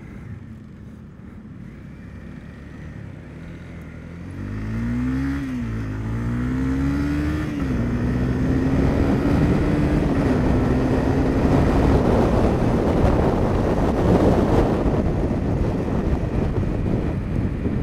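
Honda CB300F's single-cylinder engine accelerating hard through the gears: the pitch climbs, drops at two upshifts a couple of seconds apart, then holds steady. Wind noise on the microphone builds as speed rises and becomes the loudest sound in the second half.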